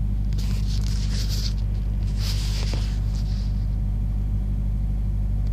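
Steady low drone of an idling semi truck's diesel engine, heard from inside the cab. Brief rustling of the phone being handled about half a second in and again around two seconds in.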